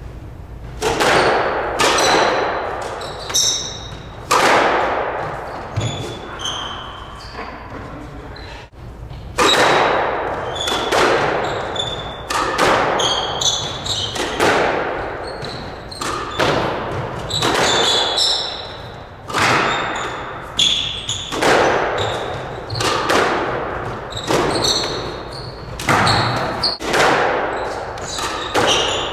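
Squash rally: the ball cracks off racquets and walls roughly once a second, each hit followed by an echo off the court walls, with short high squeaks of court shoes on the wooden floor. There is a quieter lull of a few seconds near the middle.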